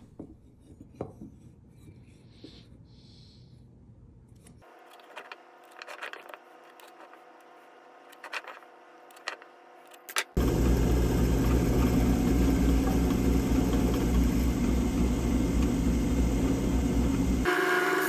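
Drill press running steadily, its bit boring into a square wooden blank; the loud motor sound starts suddenly about ten seconds in. Before it there are only a few faint clicks and taps.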